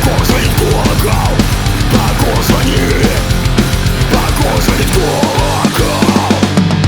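Loud heavy punk rock music with electric guitar and drums.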